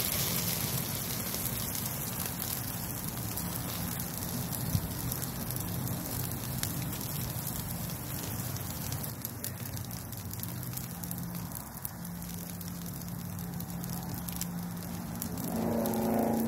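New York strip steaks sizzling on a stainless-steel grill over a crackling pinyon-juniper wood fire, with many fine pops and a sharp crack about five seconds in. A short pitched hum sounds near the end.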